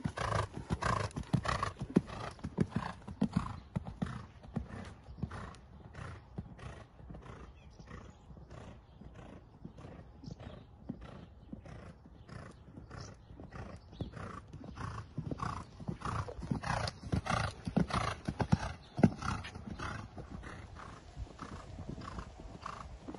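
Horse cantering on a sand arena: muffled hoofbeats in a steady, even rhythm, fading and returning as the horse goes round.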